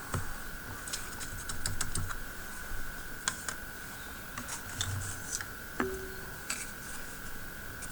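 Light, irregular clicks and small scratching sounds of small tools being handled during cleanup, over a steady faint high-pitched whine.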